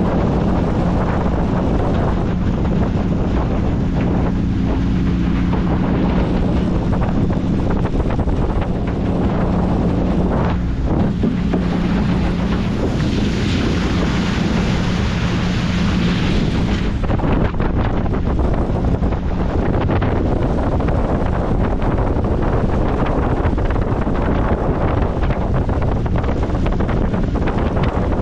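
1957 Cadillac boat's engine running steadily under way, with heavy wind buffeting on the microphone and water rushing past. A louder high hiss joins in for a few seconds past the middle and stops suddenly.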